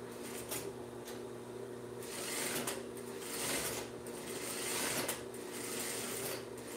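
Juki industrial straight-stitch sewing machine sewing slowly, with a steady motor hum and the stitching coming in short runs with brief pauses as horsehair braid is fed through sheer fabric.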